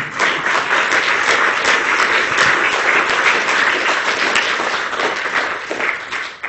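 Audience applauding: a dense, steady clatter of many hands clapping, fading away near the end.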